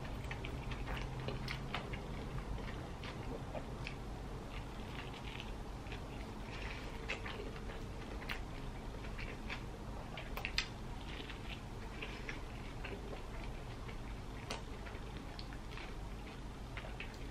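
A person biting into and chewing a soft-bun burger sandwich close to the microphone: irregular small mouth clicks and chewing noises, with one sharper click about ten and a half seconds in.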